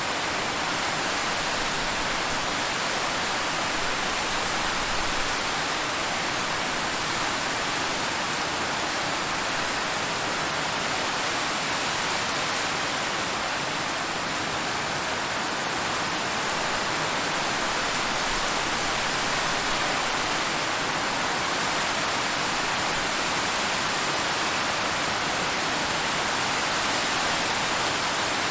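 Steady rain on a car, heard from inside the car: an even, unbroken hiss.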